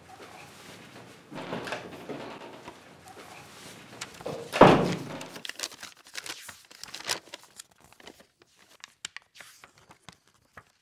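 A single heavy thump about four and a half seconds in, the loudest sound, ringing briefly, with soft rustling before it and scattered faint clicks after it.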